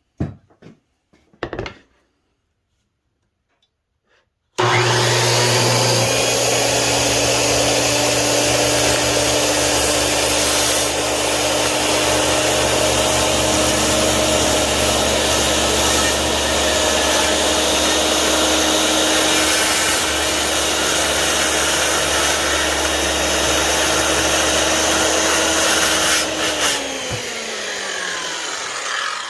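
Bosch CS10 7-1/4-inch corded circular saw with a 15-amp motor starting suddenly a few seconds in and running steadily while cutting through wood. Near the end it is switched off and the motor whine falls in pitch as the blade spins down. A few light knocks come before it starts.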